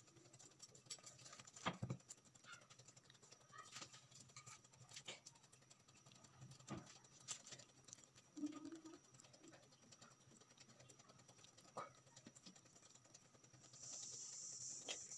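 Near silence with faint, scattered soft clicks and ticks: small handling sounds of a piping bag and metal flower nail as a cream rose is piped. A faint steady hiss rises near the end.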